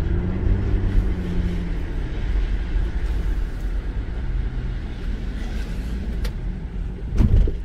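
Infiniti FX35's 3.5-litre V6 and road noise while the SUV is driven on a road test, a steady low rumble. A loud low thump near the end.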